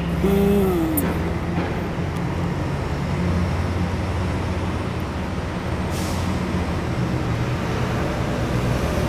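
Steady low rumble of a running engine or machinery, with a steady hum. About a quarter-second in, a short cry falls in pitch.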